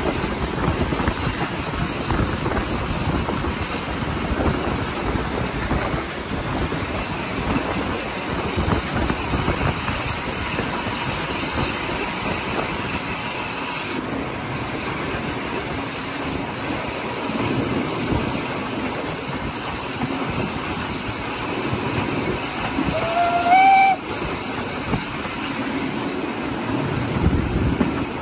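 Hunslet Austerity 0-6-0 saddle-tank steam locomotive running under steam, heard from the train: a steady rumble of exhaust, hissing steam and wheels on the rails. Near the end comes one short blast on the locomotive's whistle, rising slightly in pitch.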